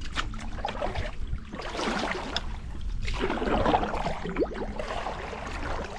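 Canoe paddle strokes in river water, splashing and gurgling in swells about every second and a half.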